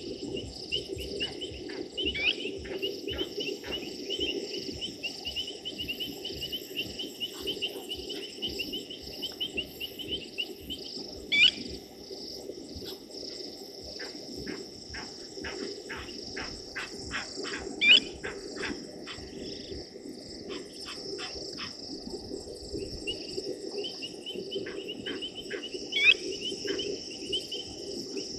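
Night chorus of crickets and other insects at a waterhole, with a lower steady chorus that is likely frogs beneath it. Runs of short, sharp clicking notes come through, and a brief, loud, sharp chirp cuts through four times.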